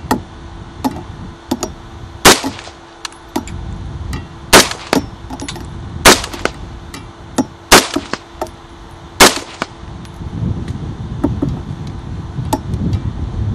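AR-15-style rifle on a 3D-printed lower receiver firing five aimed shots, about a second and a half apart, with fainter sharp cracks in between. This is a test fire of the printed lower, which cycles and holds up fine.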